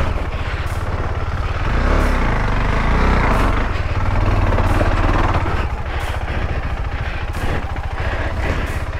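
KTM 390 Adventure's single-cylinder engine running, a dense run of low firing pulses that eases a little about halfway through.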